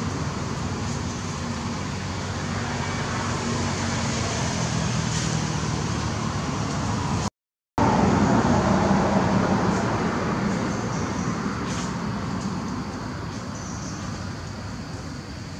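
Motor vehicle engine running steadily, a low hum under a hiss of noise. The sound drops out for about half a second midway, comes back a little louder and then slowly fades.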